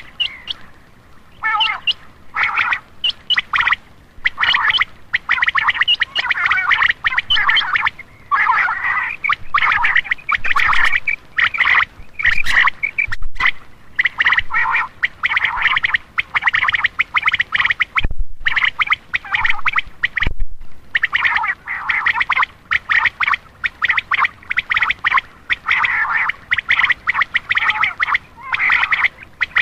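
Quail calling in rapid trains of short, repeated notes with brief pauses between bursts, played as a lure call to draw in male quail.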